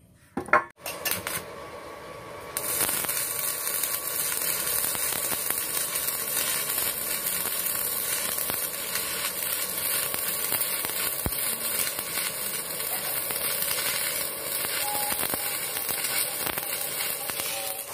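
Stick (manual metal arc) welding on steel: the electrode's arc crackles and sizzles steadily, settling in about two and a half seconds in. A sharp knock comes just before, near the start.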